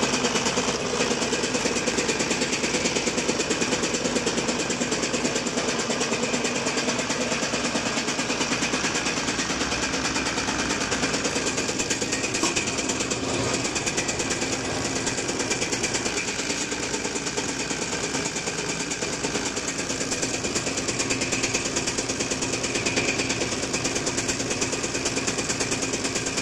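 Test bench driving a Hino HO7D Denso inline six-cylinder diesel injection pump: a steady, rapid mechanical chatter as the pump runs and delivers fuel during calibration of its delivery.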